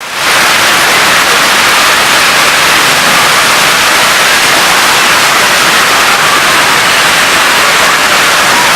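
Hailstorm with heavy rain: hailstones and rain pelting down together in a loud, steady, unbroken hiss of noise.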